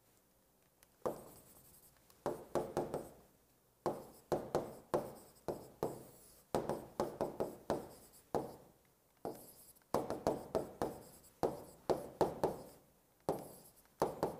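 Stylus writing on an interactive touchscreen display: quick runs of sharp taps and short scratches as each handwritten stroke is made, with brief pauses between words. It starts about a second in.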